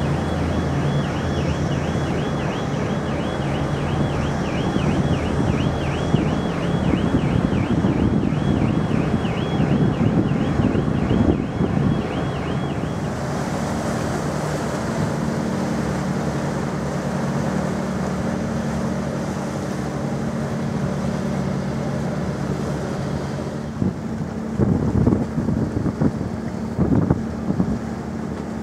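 Wind buffeting the microphone over the steady low drone of a car ferry's engines, with a few stronger gusts near the end. For the first dozen seconds a high warbling tone, like a distant siren, rises and falls about two or three times a second, then cuts off.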